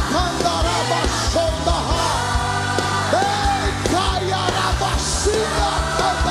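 Live worship band playing, with strummed electric guitar and drums, under many voices singing and crying out.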